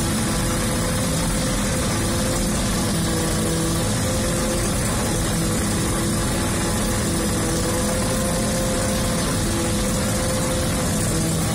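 Fortschritt E-281 self-propelled forage harvester running under load while chopping maize, heard from inside the cab: a steady engine and cutterhead drone with a few faint tones that waver slightly in pitch. The chopper's stationary knife has been freshly built up by welding and sharpened.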